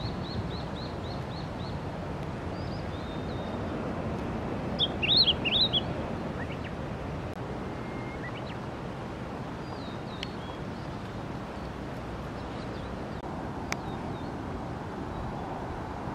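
Male blue-and-white flycatcher singing: a run of high, clear notes trailing off at the start, a louder phrase about five seconds in, then scattered faint notes. A steady low background noise runs underneath.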